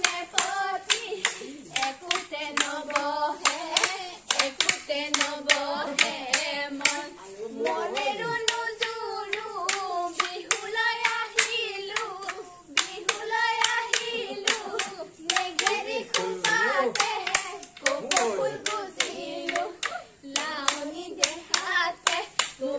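Women and girls singing a Bihu song together over a steady rhythm of hand claps.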